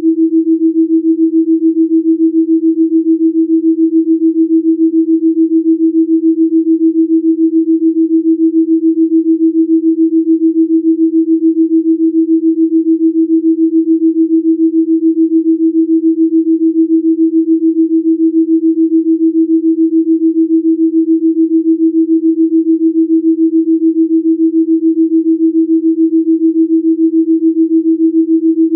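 A single steady, humming pure sine tone, a Rife-frequency delta binaural-beat tone, pulsing evenly in loudness.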